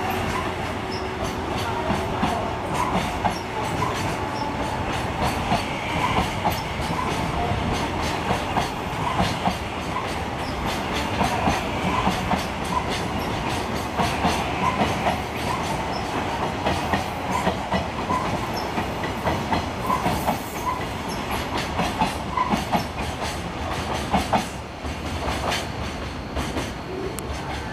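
Container flatcars of a freight train rolling past, their wheels clattering over rail joints and points in an uneven run of clicks over a steady rumble. The sound eases a little near the end as the train draws away.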